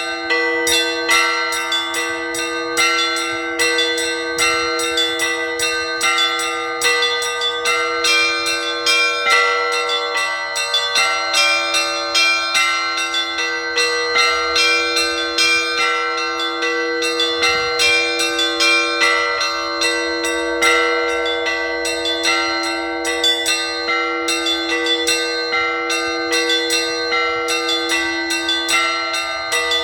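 Orthodox church bells ringing a full peal. A large bell's low tone is struck again every second or two, under a fast, continuous rhythm of many smaller bells.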